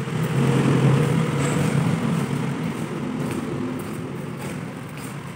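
A road vehicle's engine passing by, with a steady low hum. It swells within the first second, is loudest about a second in, and then slowly fades.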